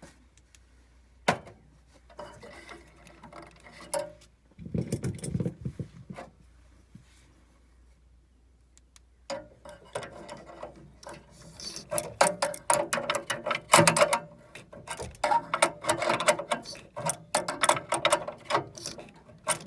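Hand wrench ratcheting and clicking against metal while a threaded part on a gas furnace is turned. There are a few scattered knocks at first, then from about halfway a dense, quick run of clicks.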